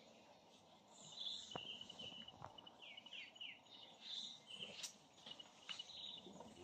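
Faint bush ambience: repeated short high bird chirps and calls, a few quick downward-slurred notes about three seconds in, insects, and a few soft clicks.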